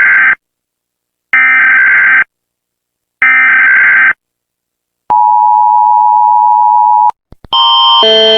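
Emergency Alert System broadcast alert. It opens with the end of one harsh, buzzing burst of digital header data and then two more, each about a second long and a second apart. Then comes the two-note attention tone, held steady for about two seconds. Near the end, after a brief gap, a different alarm of stacked tones starts, changing pitch about every half second.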